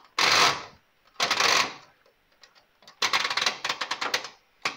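Rapid run of ratcheting clicks from a Zanussi ZTI 823 washing machine's analogue programme timer knob being turned to the fast-spin program, lasting about a second and a half, with two short scraping noises before it.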